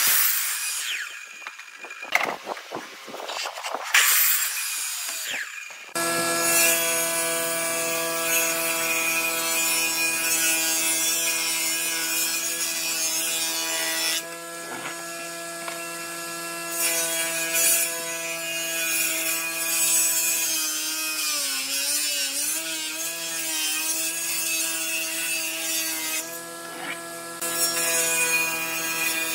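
A sliding compound miter saw cutting through a wood plank in loud bursts. About six seconds in, a table saw takes over, its motor running with a steady hum while it rips a rough-sawn board. The motor's pitch sags briefly under load about three-quarters of the way through.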